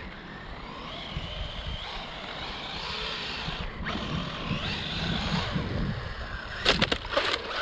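Small cheap RC car's electric motor whining, rising and falling with the throttle as it drives across pond ice. A quick run of sharp knocks and clatter comes near the end.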